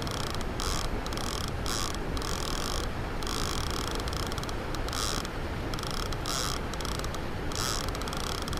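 Conventional fishing reel ratcheting in many short, irregular bursts, over a steady low background rumble.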